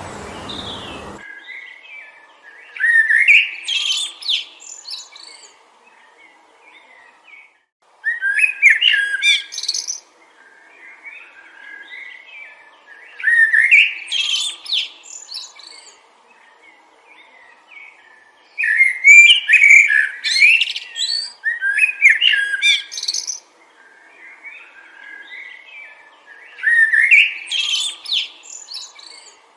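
Wind noise that cuts off suddenly about a second in, then a songbird singing: five loud, fast warbling phrases of a few seconds each, about every five seconds, with softer chirps in between.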